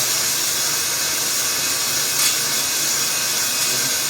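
Cordless drill in first speed spinning a stone cylinder hone inside an oiled cylinder bore of an LQ9 V8 block: a steady motor hum under the hiss of the stones scraping the cylinder wall, with a small click about two seconds in. The drill's battery is running low.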